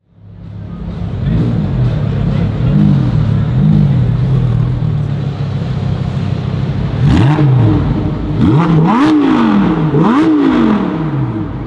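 A car engine idling and being revved: a few short blips early on, then three bigger revs, each rising and falling in pitch, with sharp pops around the peaks.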